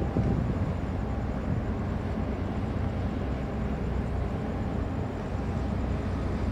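Steady low rumble with wind buffeting the microphone.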